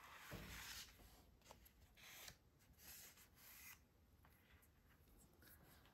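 Faint rustling and scraping of paper and cardstock being handled, in a few short brushes, the strongest in the first second.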